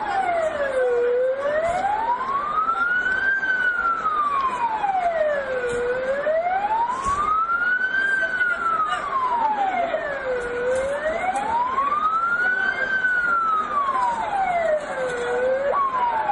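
Emergency vehicle siren wailing in a slow rise and fall of pitch, one cycle about every four to five seconds, with a sudden break in the sweep near the end.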